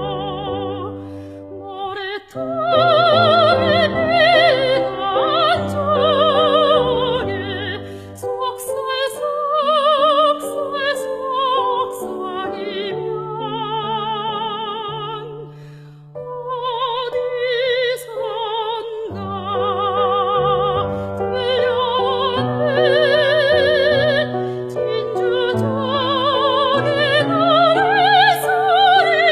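Soprano singing a Korean art song (gagok) in operatic style with a wide vibrato, over an accompaniment of sustained lower notes; the voice eases off briefly about halfway through, then comes back in full.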